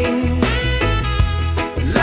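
Slow reggae pop ballad music: a steady bass-and-drum groove under sustained melody notes.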